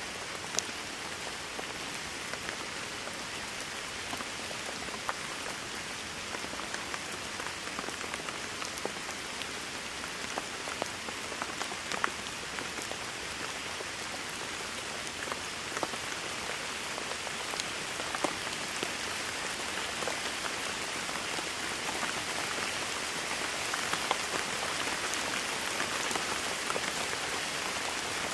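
Steady rain falling, an even hiss with scattered sharp drips of individual drops striking a surface; it grows slightly heavier in the second half.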